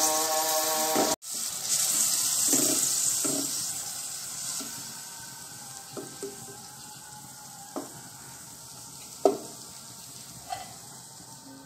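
Browned onions and whole spices sizzling in oil in a pan after garlic paste and a little water go in, the sizzle slowly dying down. A spoon knocks against the pan now and then while stirring.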